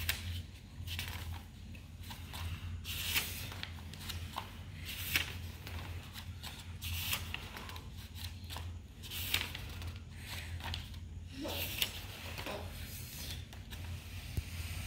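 Sketchbook pages being turned by hand: a short swish and rustle of paper about every two seconds.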